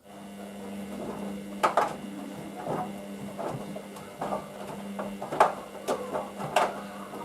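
Hoover VisionDynamic DYN9144D3X front-loading washing machine running a wash: a steady motor hum with irregular knocks and clunks as the drum turns the laundry.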